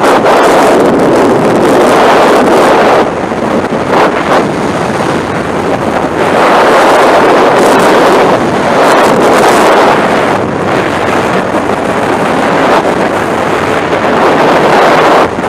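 Loud freefall wind rushing over a skydiver's camera microphone: a steady, even rush that dips briefly a few times.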